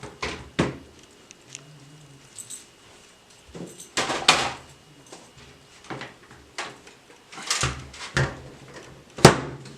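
Scattered sharp clicks and clatters of a computer case's metal and plastic parts being handled, with a loud knock near the end.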